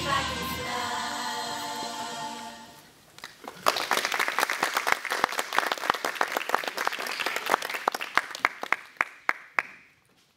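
The song's final sung note is held and fades out about three seconds in. Then audience applause breaks out, thins to a few scattered claps and dies away near the end.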